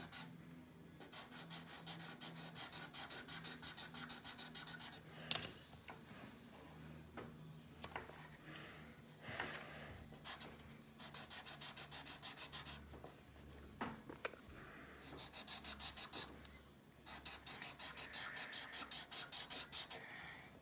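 Sharpie felt-tip marker being rubbed back and forth on paper to colour in: runs of quick scratchy strokes, several a second, with short pauses between runs. A sharp tap comes about five seconds in.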